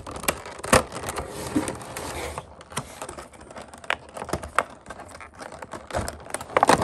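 Clear plastic packaging tray being handled and worked out of a box by hand: scattered sharp plastic clicks and crackles over scraping and rustling, with a cluster of clicks near the end.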